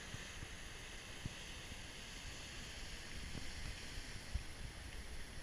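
Sea surf breaking on the rocks below the cliffs, a steady wash of noise, with wind rumbling on the microphone and two dull thumps, the louder one near the end.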